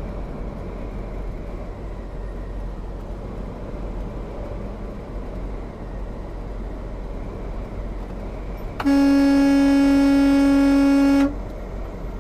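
Steady road and engine noise heard inside a semi-truck cab, then one loud horn blast of about two and a half seconds near the end, held on a single steady pitch, sounded as a warning to a tractor-trailer crowding the lane on a curve.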